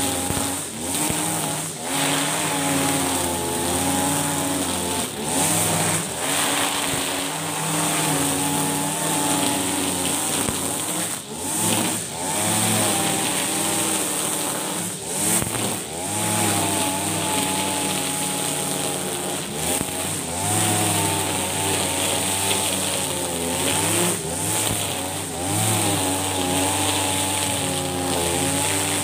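Husqvarna 542RBS backpack brush cutter's 42cc two-stroke engine running at high revs as its 2.4 mm nylon line cuts thick, tall grass. The engine pitch keeps wavering up and down, with a few brief dips in revs.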